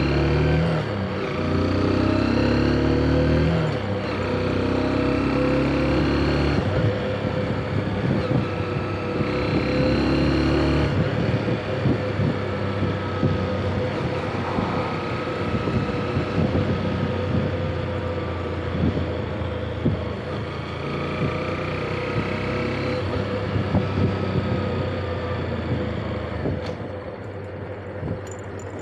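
Motorcycle engine heard from the rider's seat, pulling hard in a few steps over the first ten seconds or so with short breaks between them, then running lighter along the street. Wind rumbles on the microphone throughout the lighter stretch.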